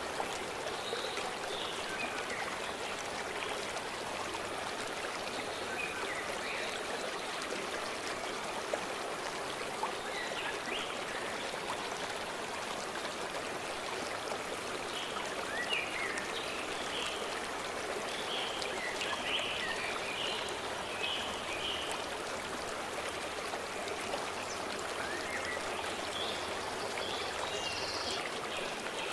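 A forest stream rushing steadily over stones, with birds chirping in short scattered phrases over the water, busiest around the middle and again near the end.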